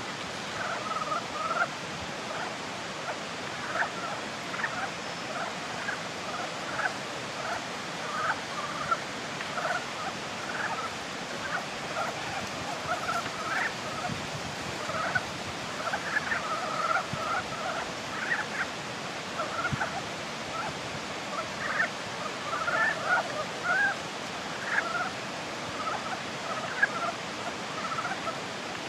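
A chorus of Ezo brown frogs (Rana pirica) calling, many short calls overlapping several times a second, over a steady background hiss.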